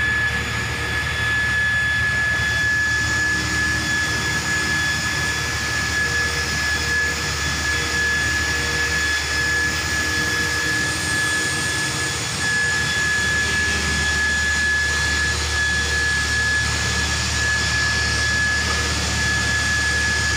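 Pumps of a 1000 LPH automatic reverse-osmosis water plant running steadily after being switched back on by the treated-water tank's float switch, with a constant high-pitched whine over the motor hum.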